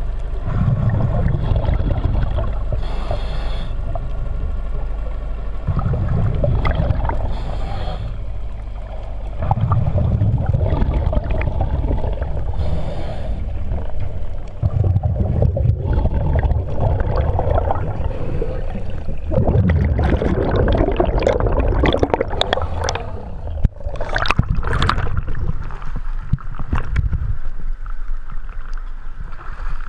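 A scuba diver breathing through a regulator, heard underwater: short hissing inhalations and rumbling bursts of exhaled bubbles every few seconds. Over the last third, splashing and sloshing water as the diver surfaces at a boat's dive ladder.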